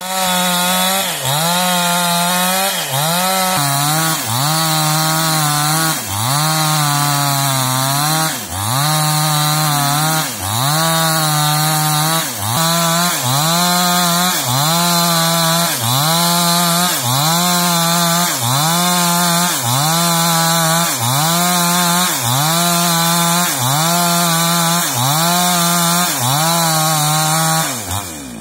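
Two-stroke chainsaw at high revs, rip-cutting lengthwise through a squared timber beam. The engine note dips under load and recovers in a steady rhythm about every second and a quarter. It drops off near the end.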